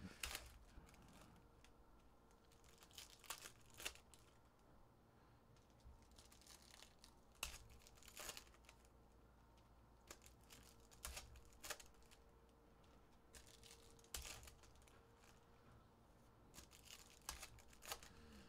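Faint, scattered crinkling and tearing of foil trading-card pack wrappers as packs are opened and cards handled, in short rustles every second or two.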